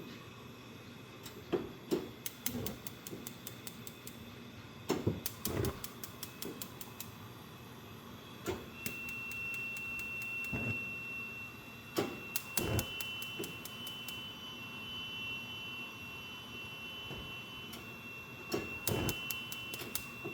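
Gas range's spark igniter clicking in several quick runs of about five clicks a second, with a few low thumps among them. From about nine seconds in, a steady high-pitched tone sounds alongside.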